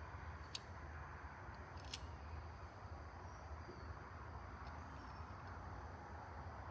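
Light, sharp clicks of small pen-kit parts being handled during assembly, two of them standing out early on, over a steady low hum.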